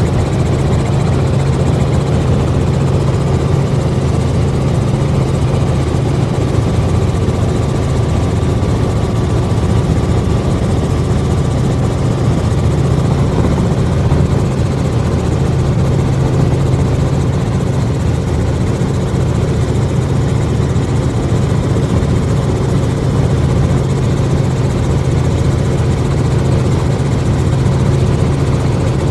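Helicopter in level cruise flight, heard from inside the cabin: a loud, steady low hum of engine and rotor that does not change throughout.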